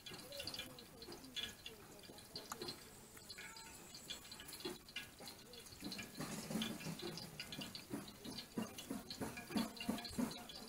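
Wet clicks and drips of marinated raw chicken pieces being handled and lifted out of a metal pot by gloved hands, irregular and fairly quiet.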